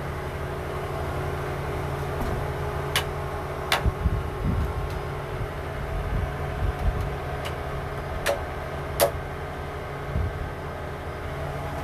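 Steady mechanical hum, with four sharp clicks, two about three to four seconds in and two about eight to nine seconds in, and a few dull low thumps.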